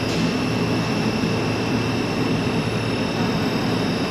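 Butyl rubber extrusion line running: a steady machine hum with a constant high-pitched whine over it.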